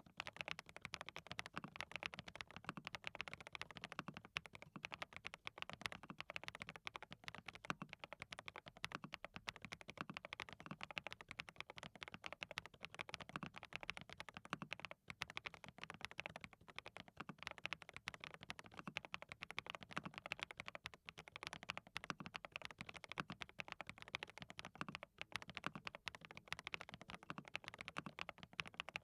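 Continuous fast typing on a hand-lubed DT35 87-key custom mechanical keyboard fitted with SWK Cheddar linear switches: a dense, unbroken run of keystroke clicks.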